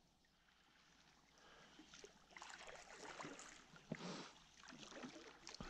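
Faint kayak paddling on calm water: paddle blades dipping and dripping, with one slightly louder stroke about four seconds in and a small knock near the end.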